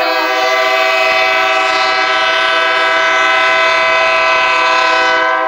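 Diesel locomotive air horn sounding one long, steady blast that cuts off near the end.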